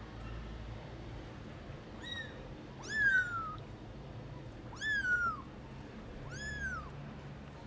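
A young kitten meowing four times: high-pitched calls that each rise and then fall in pitch. The two about three and five seconds in are the loudest and longest.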